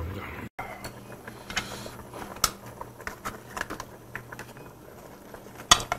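Stainless steel tongs clicking and tapping against a metal tray and pot while thin beef slices are lifted into a simmering shabu-shabu broth. The loudest tap comes near the end, over a faint steady hum.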